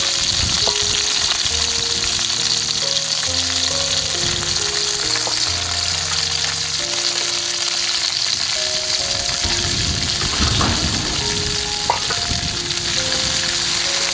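Food frying in a pan, a steady sizzle, with a few light clicks through it. Soft instrumental music with slow, held notes plays underneath.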